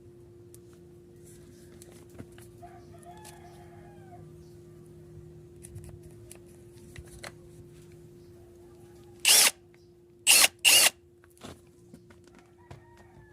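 Cordless drill triggered in three short bursts, one and then two in quick succession, over a faint steady hum.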